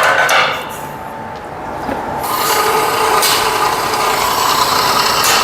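Brief clattering of a portable automatic pipe-cutting machine being adjusted on a steel pipe. From about two seconds in, its drive runs with a steady mechanical sound as the carriage travels around the pipe on a test run to check that it follows the line.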